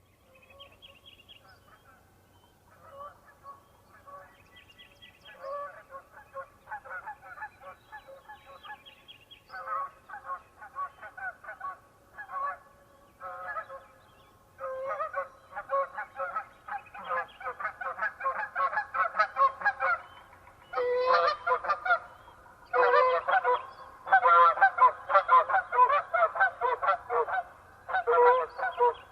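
A flock of geese honking in flight, many calls overlapping. The honking starts faint and grows steadily louder as the flock approaches, and is loudest in the last third.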